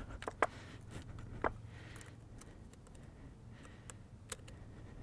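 A few faint, scattered metal clicks as snap ring pliers are worked into a greasy CV joint to spread the snap ring on the half shaft.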